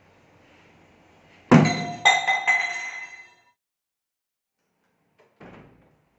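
A sudden loud crash with ringing, clinking tones, struck again twice in quick succession before dying away over about two seconds. A softer thud follows near the end.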